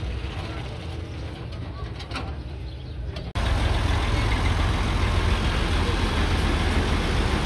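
Massey Ferguson tractor's diesel engine running steadily with a low rumble. A little before halfway it turns abruptly much louder and closer.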